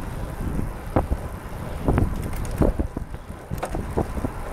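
Wind buffeting the microphone of a camera riding on a moving recumbent trike, a steady low rumble, with irregular sharp taps and knocks scattered through it.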